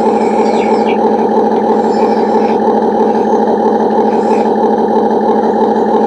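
Radio-controlled excavator and bulldozer running their electric motors and hydraulic pump, a loud steady buzzing whine with a fast pulse.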